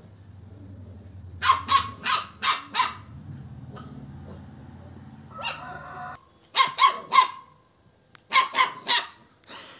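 Dog barking in quick runs: about five sharp barks, then three, then three more.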